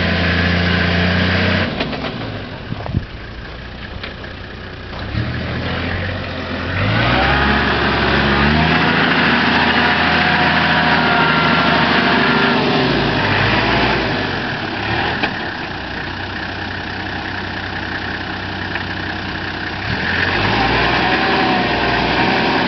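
Engine of a Toyota Land Cruiser 70-series troop carrier pulling through deep loose sand in a dry river bed. The revs rise about six to eight seconds in, run loudest through the middle, fall back for several seconds and pick up again near the end.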